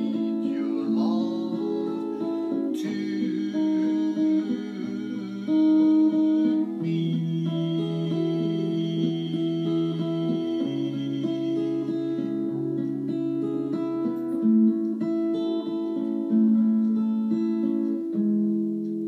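Live acoustic guitars strumming and picking a slow ballad while a man sings into a microphone, with long held notes.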